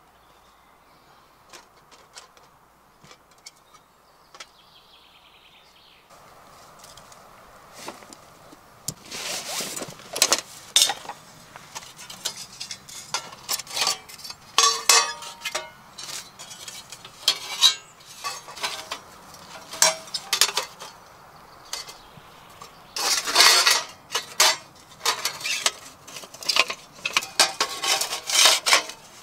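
Steel plates of a Petromax folding firebox stove clinking and clattering as they are handled and slotted together. There are repeated sharp metal knocks and scrapes, some with a short ring, starting several seconds in.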